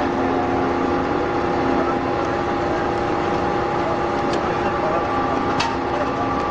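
Hydraulic scrap metal baler running steadily, its pump and motor giving a constant hum with several held tones, with a couple of sharp metallic clicks about four and five and a half seconds in.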